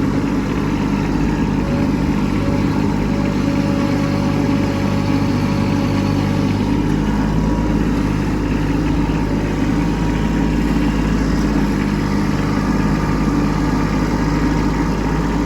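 Kubota B2601 compact tractor's three-cylinder diesel engine running steadily.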